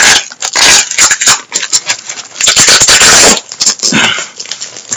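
Packaging being torn and scraped open by hand close to the microphone: a run of loud crackles and scrapes, with a longer ripping noise about two and a half seconds in.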